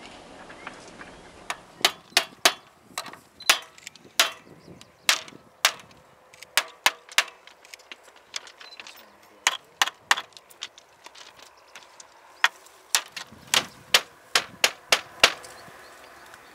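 Sharp knocks in irregular runs as a bamboo train's slatted wooden frame is worked by hand and fitted onto its axles. There is a busy run in the first seconds, a short cluster midway, and a quick run of knocks near the end.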